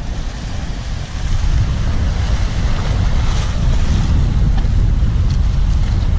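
Wind buffeting the microphone over surf washing across a rocky shore, a loud uneven rumble that grows louder about a second in.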